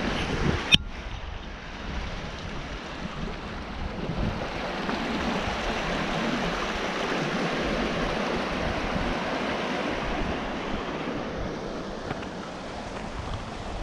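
Steady rush of river water running through channels and small cascades in limestone rock, with wind buffeting the microphone. One sharp click about a second in.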